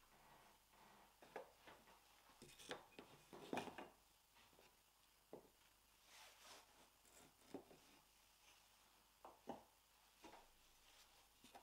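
Faint, scattered clicks and light knocks of wooden frame corner samples being handled and set down against paintings on a shop counter, over quiet room tone.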